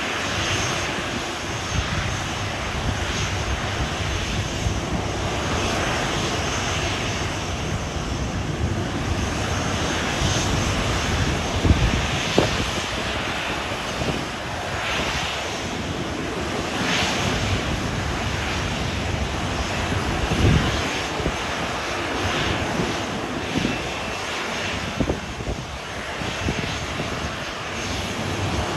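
Boeing 737's jet engines running with a steady rushing noise, with irregular low rumbles now and then.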